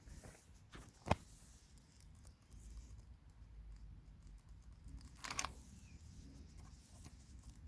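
A sharp click about a second in, then a short scraping rattle about four seconds later, over faint scattered ticks.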